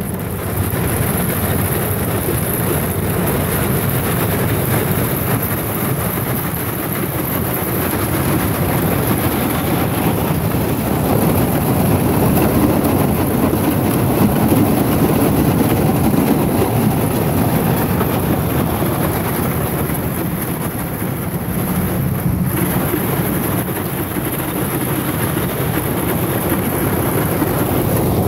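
An aluminium jon boat driven by a mud motor breaks through thin river ice. The engine runs steadily under a constant crunching and grinding of ice against the hull.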